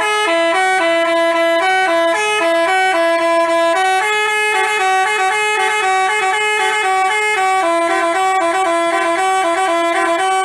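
Basuri telolet bus horn playing a tune: a melody of changing notes sounding in two voices together, held notes at first and quicker notes from about four and a half seconds in.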